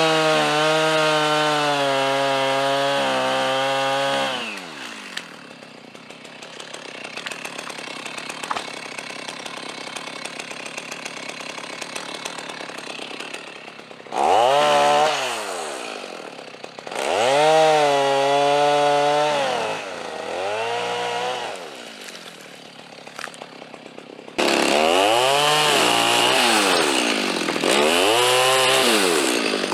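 Two-stroke chainsaw running at high revs, dropping to a low idle for about ten seconds, then revved up and down in several short bursts before running high again near the end.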